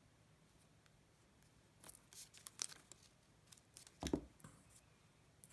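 Crinkling and peeling of glue dots from their paper backing, then a soft thump about four seconds in as a cardstock cut-out is pressed down onto the card.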